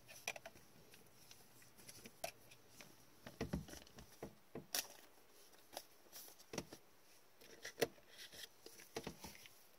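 Soft, irregular rustles, taps and plastic scrapes from gloved hands handling a trading card and slipping it into a clear plastic sleeve.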